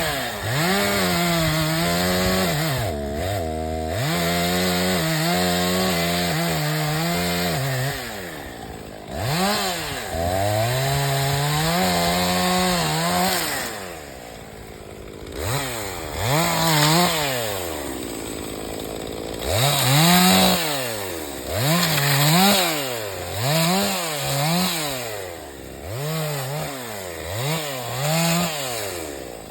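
Two-stroke chainsaw felling a tree. The engine is held near full throttle through two long stretches of cutting, drops back toward idle for a moment, then is revved up and down in quick repeated bursts, about one a second, through the second half.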